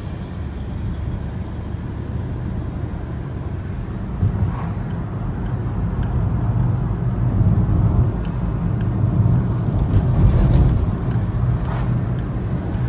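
Road and engine noise inside a moving car's cabin: a steady low rumble that grows a little louder in the second half.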